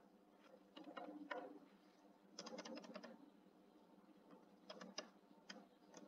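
Faint computer keyboard keystrokes in a few small clusters of taps, with short pauses between them.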